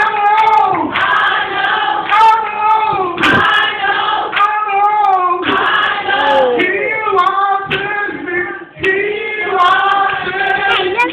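Gospel singing: an amplified voice holds long notes that slide up and down, with a short break about eight seconds in.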